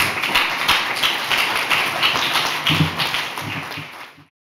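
Audience applauding, a dense patter of hand claps that fades out about four seconds in.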